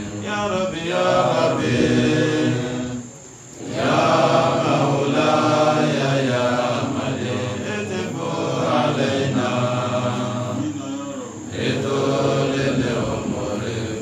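A man's voice chanting Islamic devotional verses in a long melodic line, pausing briefly for breath about three seconds in and again near eleven seconds.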